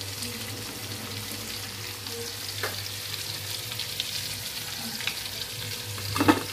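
Hot cooking oil sizzling steadily in a wok after frying chicken. A few metal clinks come from a wire mesh strainer against the wok and an enamel plate, one about two and a half seconds in and a louder cluster near the end.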